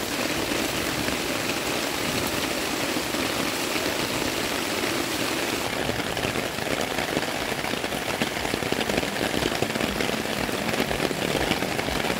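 Heavy rain falling steadily and splashing onto wet rocks and puddles. The sound changes slightly about halfway through.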